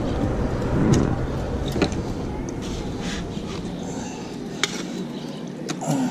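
Steady wash of water and wind noise around a kayak beside a bridge pillar, broken by a few sharp knocks and clicks of gear against the hull as a landing net is lifted.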